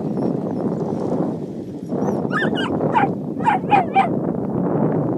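A dog yipping and whining, about six short high yelps that drop in pitch, coming quickly one after another from about two seconds in. Under them is a steady rush of wind on the microphone.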